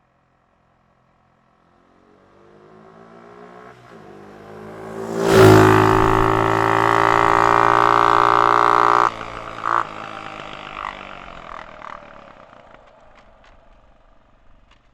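Quad bike (ATV) engine driving by. It grows out of silence with rising pitch, runs loud and steady for about four seconds, then drops off suddenly and fades away with a couple of short blips of throttle.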